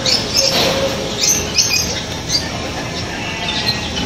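Birds calling, short high chirps and squawks coming every second or so over a steady background noise.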